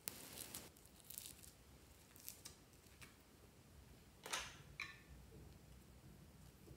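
Faint, scattered handling noises: a short crackly rustle at the start as a ball of foam beads is squeezed, then a few light plastic clicks and rustles, the loudest a little past four seconds in with a brief squeak just after, as a small plastic candy-shaped container is picked up.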